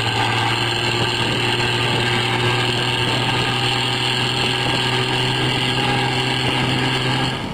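An engine running steadily, with a low, unchanging drone.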